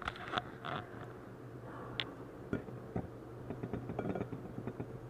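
Close-miked chewing of battered shrimp: an irregular run of small crunches, crackles and mouth clicks, busiest in the first second and again about four seconds in, over a faint steady hum.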